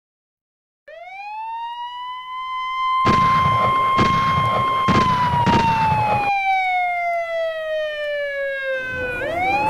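Police siren sound effect: a single wail that rises to a high pitch, holds, then slowly falls, and starts rising again near the end. For a few seconds in the middle, gunshots sound over it about once a second, loudest of all.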